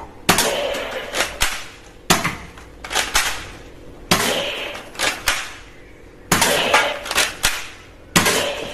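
Gun-like bangs about every two seconds, five in all, each sharp crack trailing off in a crashing, shattering tail, with lighter clicks in between.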